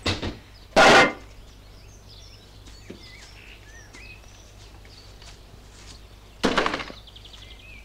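A hand banging twice on the sheet-metal body of a van, about a second in and again near the end, with birds chirping faintly in between.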